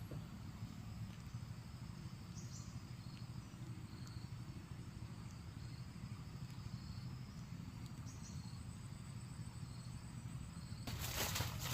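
Countryside field ambience: faint insects chirring high and steady over a low steady rumble. About a second before the end, a louder scratchy, rustling noise starts.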